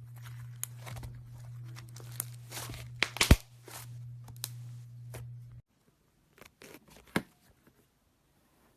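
Slime being mixed and squished, with sticky crackles and pops, the loudest pop a little past three seconds in. A low steady hum underneath stops abruptly about two-thirds of the way through.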